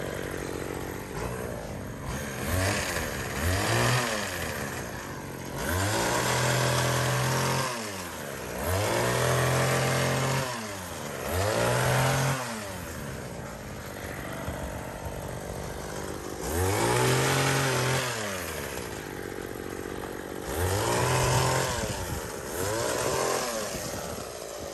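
Two-stroke engine of a 1990s US-made hedge cutter revving up and dropping back to idle again and again as its blades are worked into a bush.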